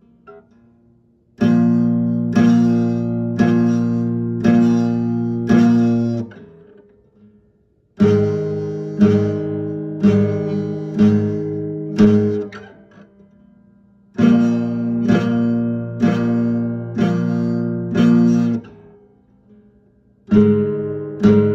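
Acoustic guitar playing a slow DSBM-style intro: strummed chords about one a second in phrases of roughly five seconds, each phrase left to ring out and fade before the next begins.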